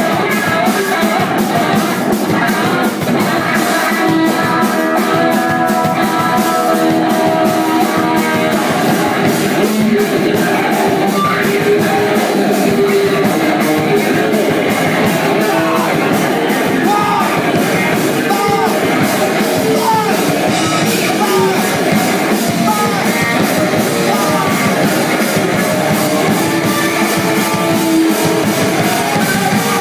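A live rock band playing loud and steady, with electric guitar, bass guitar and a drum kit.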